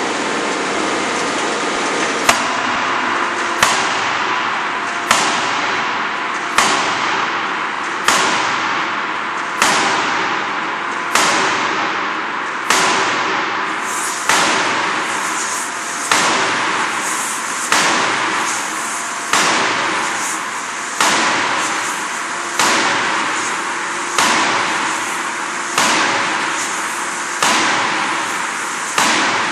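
C86-series 400 kJ hydraulic closed-die forging hammer striking a red-hot flange forging in the die, a heavy blow about every second and a half, each ringing off briefly. The blows begin about two seconds in, over a steady machine hum.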